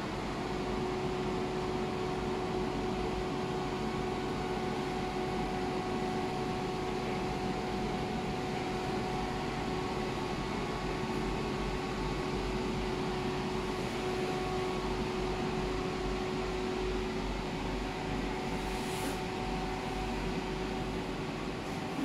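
Electric inflation blower fan running steadily with a constant motor hum, filling a large inflatable frog with air.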